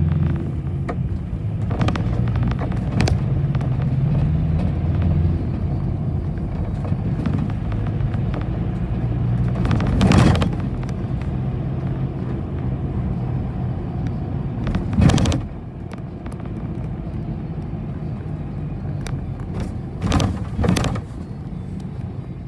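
City bus engine running and cabin noise heard from inside the moving bus, with a steady low drone. Sharp knocks or rattles come about ten seconds in, again around fifteen seconds, and twice near the end. The engine drone drops in level after the second knock.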